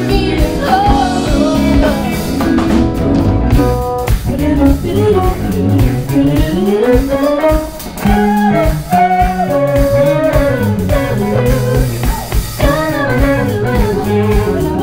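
A live band playing a bluesy groove: electric bass played with the fingers and a drum kit, with a higher melody line that bends in pitch over the top.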